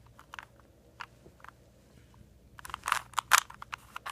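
Plastic 3x3x3 Rubik's cube layers being twisted by hand: scattered clicks, then a quick run of louder clacks about three seconds in.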